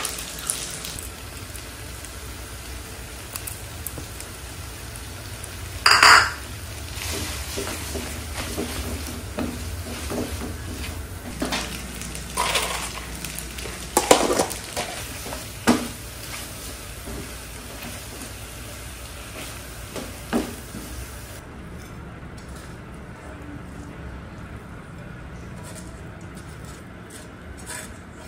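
Spaghetti sizzling in a frying pan while it is stirred and tossed with a silicone-tipped spatula, with occasional knocks of the utensil against the pan. About three-quarters of the way through the sizzle stops, leaving only light clicks and scrapes as the pasta is moved out of the pan.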